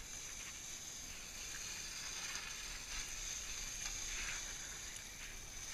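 Steady hiss of an electric recumbent trike's tyres rolling and sliding on a wet, slushy road, with a few faint ticks.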